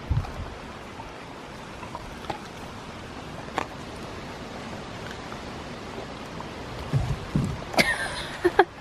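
Siberian husky chewing a raw chicken wing, with a few soft crunches of bone over a steady background hiss. Near the end come a few knocks and a brief high-pitched sound.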